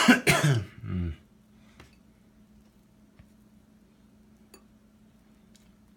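A man coughs at the start. After it there are only a few faint light clicks over a low steady hum.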